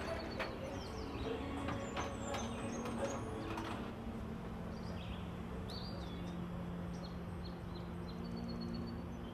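Metal baking tray slid onto an oven rack, clattering and knocking several times in the first few seconds. A low steady hum follows.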